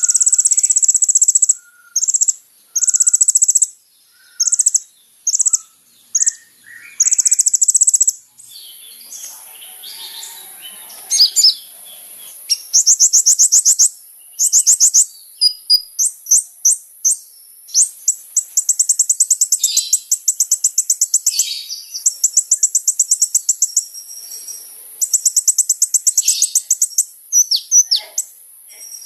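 Van Hasselt's sunbird (kolibri ninja) singing: very high, rapid buzzy trills in repeated phrases with short gaps. Some phrases are brief and some run for about two seconds, and a few lower chirps come in the first several seconds.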